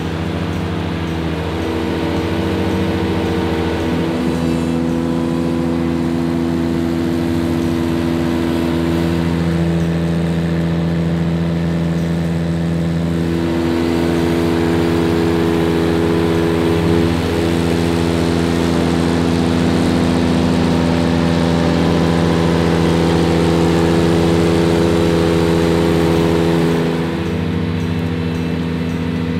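Ventrac 4500 compact tractor's engine running steadily at a constant speed while it mows with a front-mounted wide area mower deck; the level eases slightly near the end.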